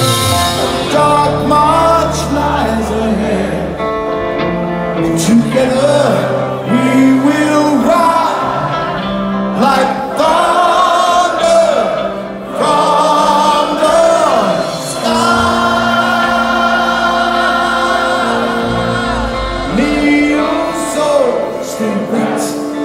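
Heavy metal band playing live, heard from the audience in a large hall: a slow sung passage with long held vocal notes over sustained chords.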